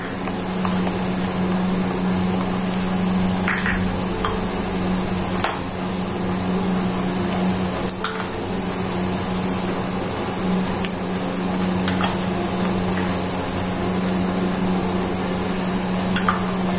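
Onions and green capsicum sizzling steadily in hot oil in a pot, with a few light clicks and taps as spoonfuls of ground spices go in. A steady low hum runs underneath.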